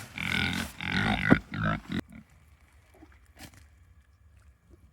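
Pigs grunting, a quick series of short loud grunts that cuts off abruptly about two seconds in, followed by a few faint knocks.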